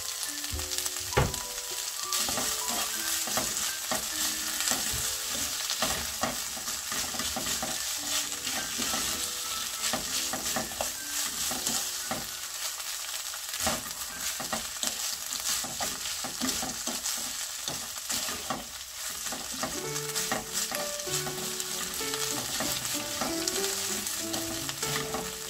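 Seasoned sweet potato stems and onion sizzling in a hot frying pan as they are tossed with two wooden spoons. The spoons clack and scrape against the nonstick pan many times, with one sharper knock about a second in.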